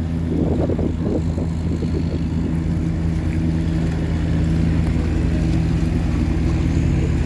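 Tugboat engine running steadily under load, towing cargo barges upstream against a strong current: a deep, even drone.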